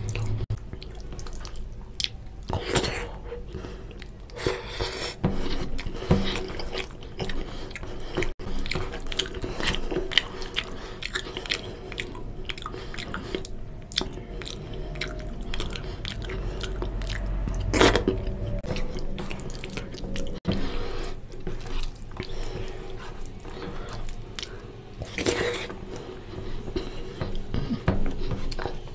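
Close-miked wet chewing and lip-smacking of rice and oily mutton curry, mixed with the squelch of fingers working rice into gravy on a steel plate. The sounds come as irregular wet clicks and smacks.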